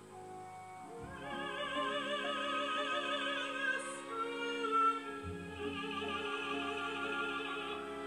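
Recorded opera playing through a pair of Tannoy Cheviot loudspeakers: a singer with wide vibrato comes in about a second in and holds long notes over an orchestra.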